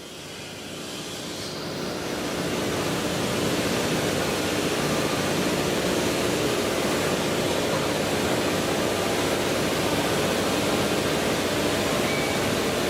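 Kao Ming KMC 2000SV CNC portal milling machine running: a steady rushing noise with a hum of several steady tones, growing louder over the first few seconds and then holding level.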